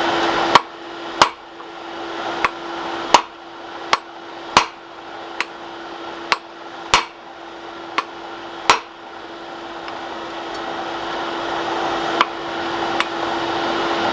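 Hand hammer blows on the end of a hot bar of 25 mm square 1080-type steel, upsetting it. The blows are sharp and ringing, about one every 0.7 s for roughly nine seconds, then fewer and fainter near the end, over a steady hum.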